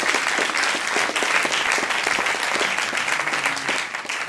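Theatre audience applauding with many hands clapping, beginning to die down near the end.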